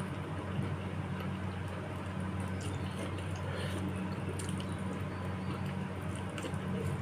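Close-up eating sounds of bakso meatball soup with spinach: wet slurps of broth and chewing, with a few small light clicks. A steady low hum runs underneath.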